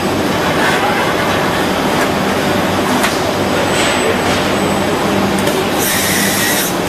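Steady, loud machine noise from a robotic cutting and finishing cell for a car dashboard, with a faint hum, a few light ticks, and a brief high hiss near the end.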